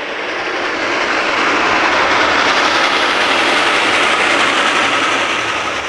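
Steam locomotive No. 425 and its train passing, a loud rush of noise that builds up, peaks midway and fades away near the end.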